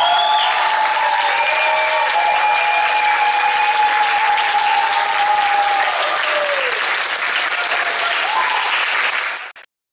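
Audience applauding and cheering, with long held voiced cheers over the clapping for the first six seconds or so. The sound cuts off abruptly near the end.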